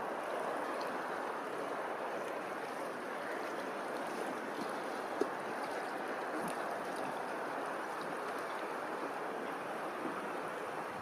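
Steady rushing of flowing water, with a single faint click about five seconds in.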